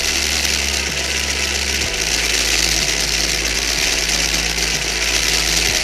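Small electric motor driving a 3D-printed plastic differential in a 1/24-scale RC car's front axle, the gears and wheels spinning with a steady whir; a low hum underneath steps in pitch about once a second.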